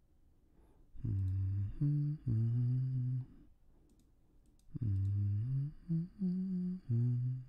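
A man humming a tune to himself in four short phrases of held notes that step up and down, with a few faint clicks in the pauses.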